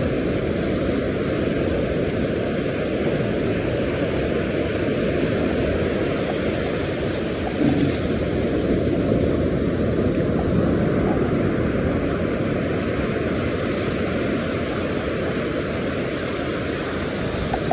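Steady low rushing noise of wind on the microphone and surf on the beach, with a brief bump about eight seconds in.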